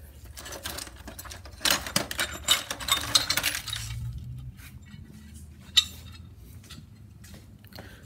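Small hard objects clinking and rattling as someone rummages through them, a flurry of clinks in the first half, then quieter with a single sharp click a little before six seconds in.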